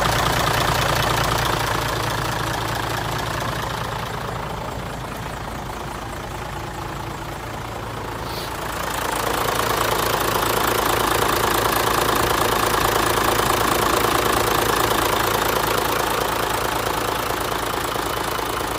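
Hino J08C inline-six diesel engine of a 1998 Hino Ranger dump truck idling steadily. It is quieter for a few seconds in the middle and louder again from about nine seconds in.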